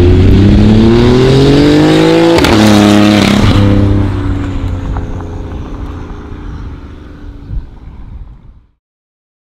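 BMW i8's turbocharged 1.5-litre three-cylinder engine, through a Fi Exhaust valved exhaust, accelerating hard with a climbing note. The note drops sharply at a gear change about two and a half seconds in, then the engine fades away and cuts off near the end.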